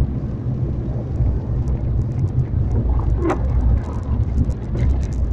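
Car running along the road, heard from inside the cabin: a steady low engine and tyre rumble.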